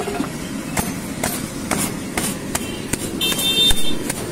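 Hands slapping and crushing a freshly cooked paratha against a marble slab to beat it into flaky layers, about two sharp slaps a second. A short high ringing tone sounds briefly near the end.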